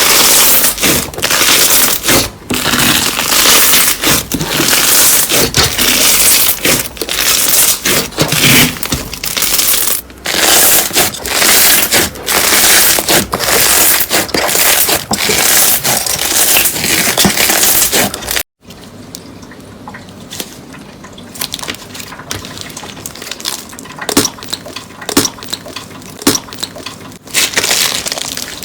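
Slime being squished and pressed, a dense run of crackling and popping. About two-thirds of the way through it cuts to a quieter stretch of scattered crackles.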